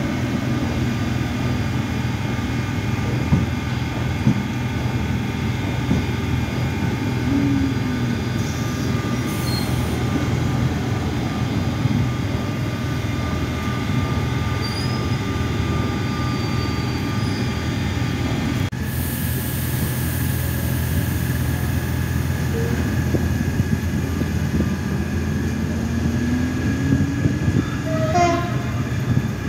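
Z2N double-deck electric commuter train running along a station platform: a steady rumble of wheels and traction equipment with steady electric hums, and a rising motor whine near the end.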